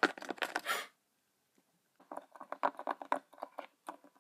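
Light clicks and taps of small plastic toy figures being moved and set down on a wooden tabletop: a short cluster at the start, then a run of quick taps from about two seconds in.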